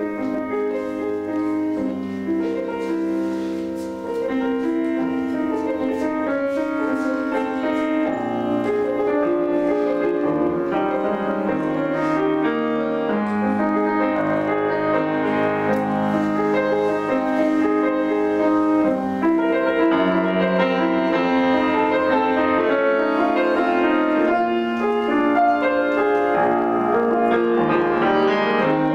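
Grand piano played solo: a continuous run of notes, many of them held and overlapping.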